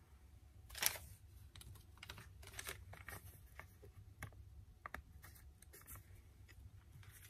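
Faint handling noise from a thin plastic stencil and a kraft-paper envelope: scattered light clicks and paper rustles, the loudest about a second in.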